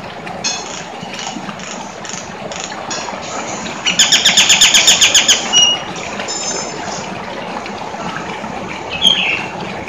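Nias hill myna calling: scattered short whistles and chirps over a steady hiss, with a loud, fast chatter of about a dozen notes about four seconds in and a falling whistle near the end.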